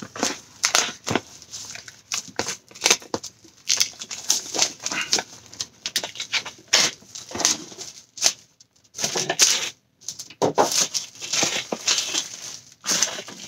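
Clear plastic shrink-wrap crinkling and tearing in irregular crackly bursts as it is peeled off a cardboard box.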